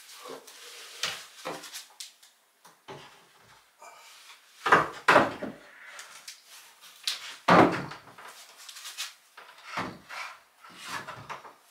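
A series of irregular wooden knocks and clunks as a heavy wooden cat scratching post is hung onto wooden French cleats (Keilleisten) on a wall, wood striking wood. The loudest thuds come about five and about seven and a half seconds in.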